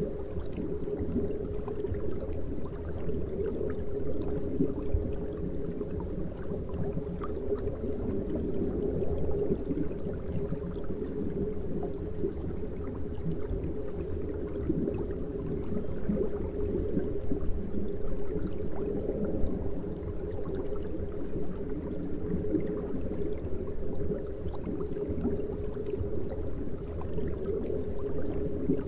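Aquarium water bubbling and gurgling steadily, a low, even sound with faint scattered ticks.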